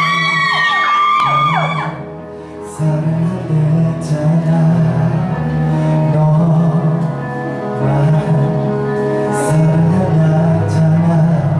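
High-pitched fan screaming for about the first two seconds, then a pop song's backing track with a male singer singing live into a handheld microphone, heard in a large room.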